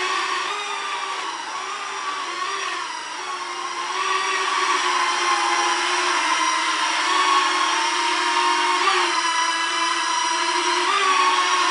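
Small toy quadcopter's motors and propellers whining in flight, the pitch wavering up and down, with quick jumps in pitch about nine and eleven seconds in.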